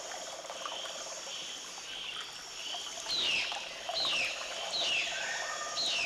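Rainforest ambience of insects and frogs calling steadily, with a high call that drops in pitch repeated four times over the second half.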